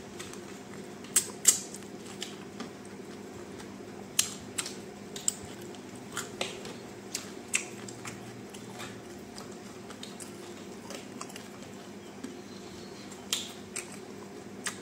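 Close-up eating sounds: a man sucking his fingers and chewing fried chicken fingers with his mouth closed, with sharp wet lip smacks and mouth clicks scattered through, most of them in the first half and a few near the end. A steady low hum runs underneath.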